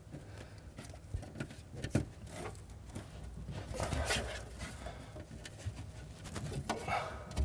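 Quiet handling noises: fingers pressing a cable and bitumen tape into place along a car's boot floor, with soft rubs and a few light taps.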